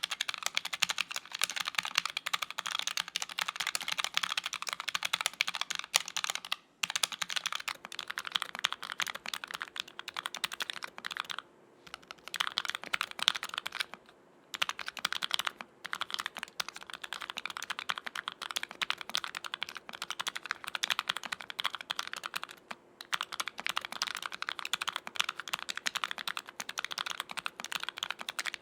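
Fast continuous typing on a Keychron K3 Retro low-profile mechanical keyboard with Gateron KS-27 low-profile switches: a dense run of key clacks, broken by a few short pauses.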